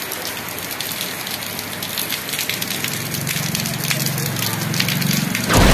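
Steady rain falling, heard as a hiss with many small drop ticks. A low hum joins about halfway, and a loud low thump lasting under a second comes near the end.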